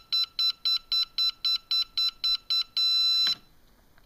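WLToys V969 radio transmitter beeping as its rudder trim is stepped back toward center, about four short, high electronic beeps a second. About 2.7 s in comes one longer beep, which marks the trim reaching center.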